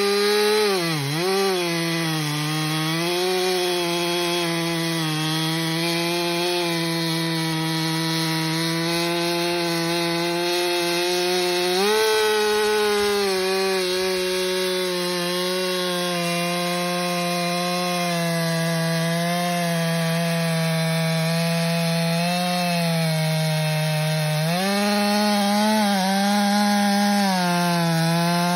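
Stihl MS400C 67cc two-stroke chainsaw with a 25-inch bar cutting through a large log at full throttle, engine pitch holding steady and sagging briefly when the bar is pushed into the cut, most sharply about a second in. The saw is broken in after about four to five tanks of fuel and running clean and responsive.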